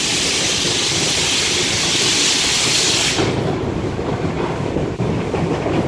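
Steam hissing loudly from steam locomotive 50 3648 as it rolls, cutting off suddenly about three seconds in. After that the locomotive's lower rumble and rattle over the track carry on.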